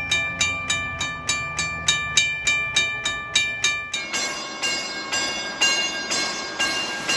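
Western Railroad Supply Co (WRRS) railroad crossing bell ringing with rapid, even gong strikes, about three a second. About four seconds in it gives way to a WRRS motor-driven gong bell striking more slowly, about two a second, with a brighter, noisier ring.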